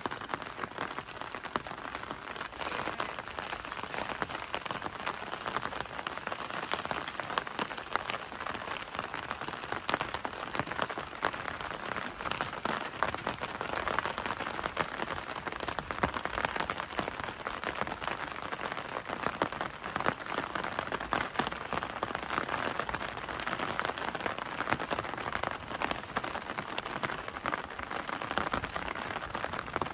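Steady rain: a dense, even hiss of countless small drop impacts that keeps on without a break.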